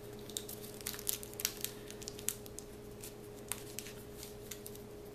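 Thin paper crinkling and crackling in short scattered ticks as it is rolled tight around a wooden cartridge former and twisted at the end, forming a paper cartridge tube.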